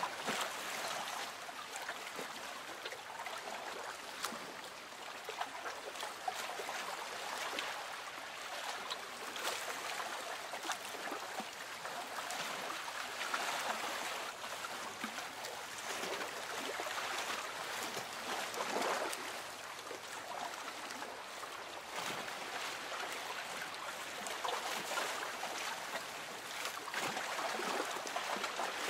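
Lake water lapping against a boat hull: a soft, continuous splashing and trickling that swells and eases every few seconds, with small drips and ticks throughout.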